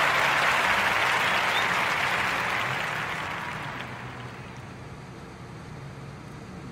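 Applause fading out slowly over the first few seconds, then dying down to a low hiss.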